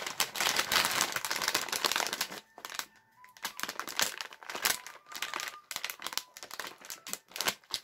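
Plastic instant-noodle packet crinkling as it is handled: a dense crackle for the first two seconds or so, then shorter, scattered crinkles.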